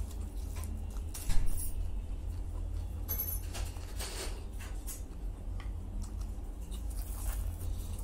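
Close-up eating sounds: a man chewing a chicken salami roll with small mouth clicks, and aluminium foil crinkling as he handles the wrapping. A sharp knock comes about a second in, all over a steady low hum.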